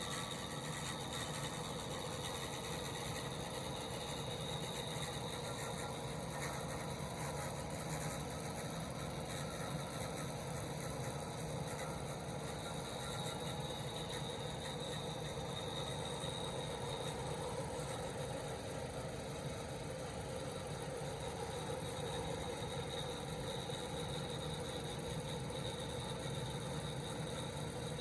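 Ford Escape SUV engine idling steadily, with no revving.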